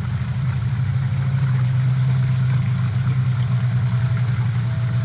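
A steady, loud low hum that holds unchanged, with a faint thin tone above it.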